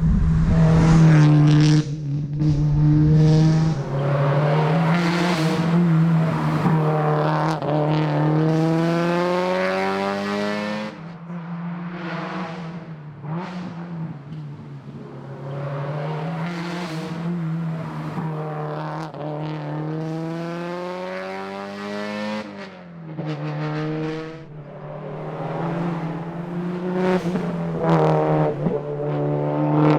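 Subaru WRX STI's turbocharged flat-four engine under hard acceleration on a tarmac rally stage. It climbs in pitch through the revs again and again, dropping back at each gear change, and eases off around a third and two-thirds of the way through.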